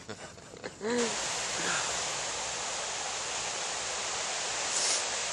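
Steady rushing of river rapids that starts abruptly about a second in, just after a short voice sound.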